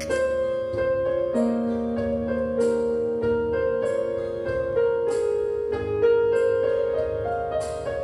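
Background music: a gentle piano tune with notes held and changing about once a second.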